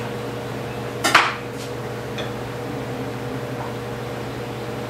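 Metal spoon clinking against glass measuring cups of heated liquid soft plastic as it is stirred before injecting. There is one sharp clink about a second in and a few fainter taps after it, over a steady low hum.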